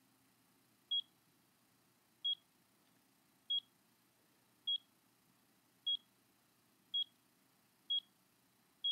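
Avalanche transceiver beeping: eight short high beeps of one pitch, about once a second, coming a little faster toward the end.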